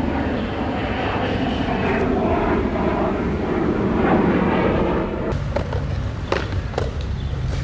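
Skateboard wheels rolling over concrete, a steady rumble for about five seconds, then two sharp clacks of the board near the end.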